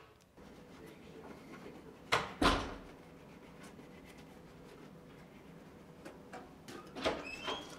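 Toothbrushing and handling at a bathroom sink: two sharp knocks about two seconds in, faint scrubbing clicks, then a cluster of knocks with short squeaks near the end.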